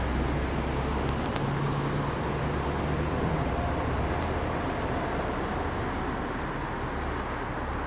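Audi A8's 4.2-litre FSI V8 idling, heard at the exhaust tips as a steady low hum.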